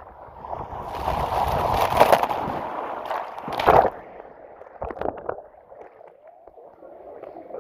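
Rider sliding fast down a water slide, a rushing whoosh of water and air that builds for a couple of seconds. A splash into the pool comes about halfway through, followed by scattered drips and gurgling water.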